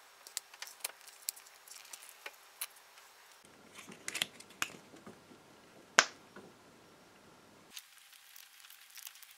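Faint clicks and rustling from a MIG welding torch and its cable being handled, with one sharper click about six seconds in.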